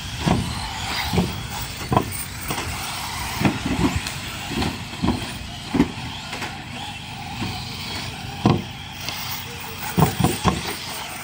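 Radio-controlled off-road cars racing on a dirt oval: a steady mix of motor whine and tyre noise on the dirt, broken by a dozen or so short, sudden thuds at uneven intervals.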